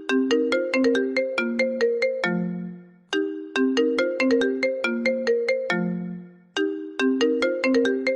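iPhone ringtone: a short melody of quick notes, each struck and fading, looping over and over. The phrase starts again about three seconds in and again about six and a half seconds in, each time after a brief dip in level.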